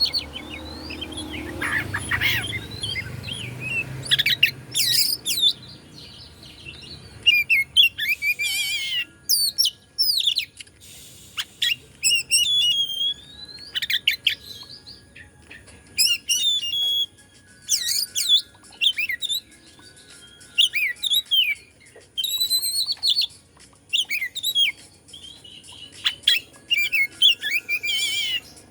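Oriental magpie-robin (kacer) singing: loud, varied phrases of whistled notes, slurs and buzzy trills, each lasting about a second and separated by short pauses.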